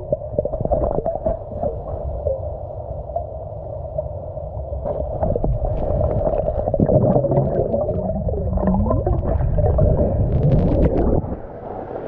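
Muffled underwater rumble of waterfall-churned water in a river pool, heard through a submerged camera, with gurgling bubbles and scattered clicks. It goes briefly quieter near the end.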